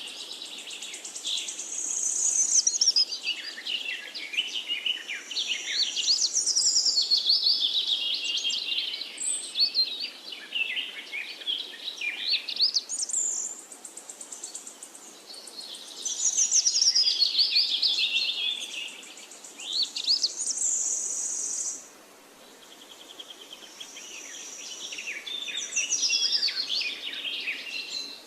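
Songbirds singing: quick, overlapping warbling and chirping phrases, with a short lull about three-quarters of the way through.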